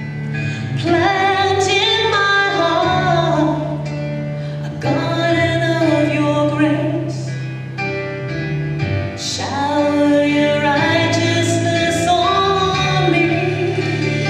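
A woman singing a slow gospel worship song over held chords from the accompaniment.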